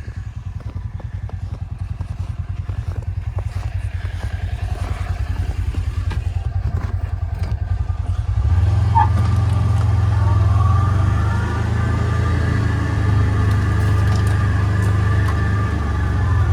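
Small off-road vehicle engine running with a rapid low pulse, then louder from about halfway through as it is given more throttle and holds steady.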